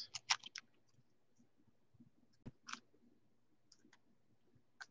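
Faint, soft clicks and taps of a small stack of trading cards being handled and slid against one another: a few in the first half second, two more around the middle and one near the end.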